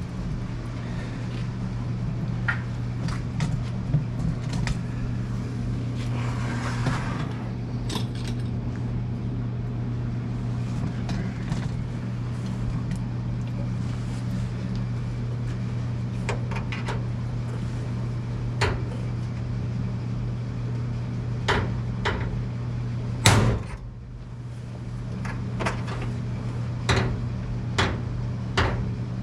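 Electric drill running steadily while boring through the sheet steel of the tool chests, with scattered sharp clicks and knocks. The motor stops about 23 seconds in, then runs again shortly after.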